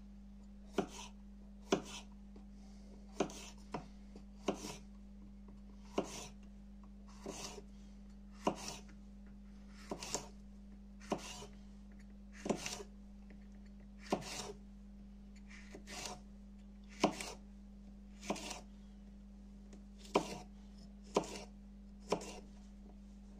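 Kitchen knife slicing a red sweet pepper into strips on a wooden cutting board: about twenty sharp knocks of the blade on the board, roughly one a second. A steady low hum runs underneath.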